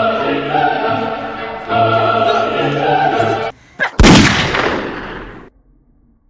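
Dramatic operatic choir singing in sustained chords, breaking off abruptly; half a second later a single loud blast dies away over about a second and a half, then cuts off suddenly.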